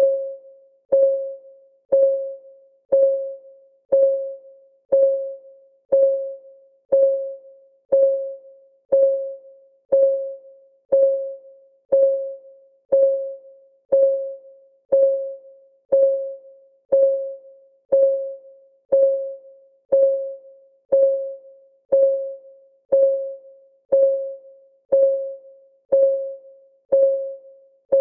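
Countdown timer's clock ticking sound: one short, pitched tick every second at an even beat, each dying away quickly.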